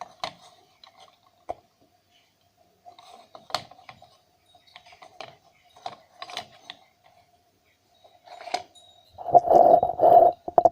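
Small clicks and knocks of parts and tools being handled on a workbench, over a faint steady hum, with two louder, noisier bursts close together near the end.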